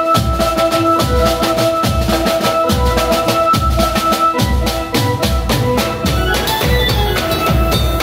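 Music with a steady drum beat under held melodic notes; the drums thin out about six seconds in.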